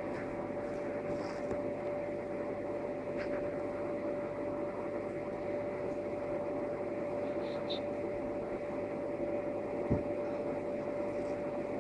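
Nail file rasping back and forth against plastic fake nail tips, over a steady electrical hum, with a soft knock about ten seconds in.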